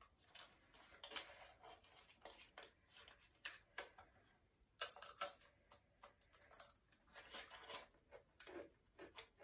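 Faint, irregular crackling and crunching: a paper cupcake case being handled and a crumbly honey treat being bitten and picked apart.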